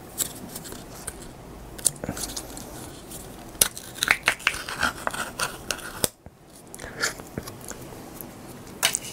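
Close-miked clicks and snips of a handmade German-style ham being trimmed and cut with kitchen utensils, irregular and sharp, with a brief hush about six seconds in.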